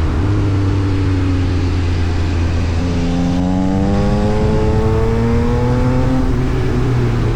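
Yamaha MT-09 SP's inline-three engine through an Austin Racing exhaust. Its pitch falls over the first couple of seconds, then rises steadily for about three seconds as the engine pulls up through the revs.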